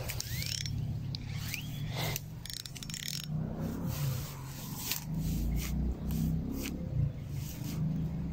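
Low wind rumble on the microphone with scattered scraping and rustling handling noise, from hands working the fishing rod and camera while a hooked carp is being played.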